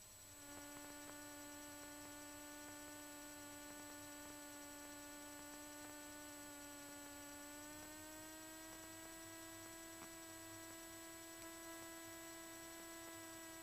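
Faint, steady electrical hum: a single pitched tone with overtones that rises slightly in pitch about eight seconds in.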